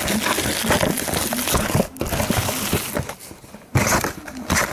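Plastic wrapping on a box of trading cards crinkling and tearing as it is opened by hand. There is a dense run of crackles and small snaps, a quieter stretch after about three seconds, and a loud rip near the end.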